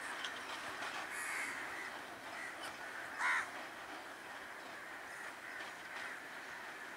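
Crows cawing, the loudest caw a short one about three seconds in, over steady background noise.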